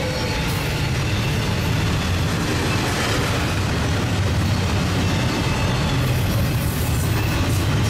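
Union Pacific double-stack intermodal freight train's container-laden well cars rolling past at speed: a steady noise of steel wheels on the rails.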